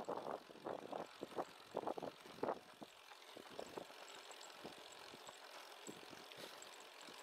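Riding noise from a moving bicycle: irregular gusts of wind on the microphone with some rattle, stronger over the first three seconds, then settling to a softer steady rush.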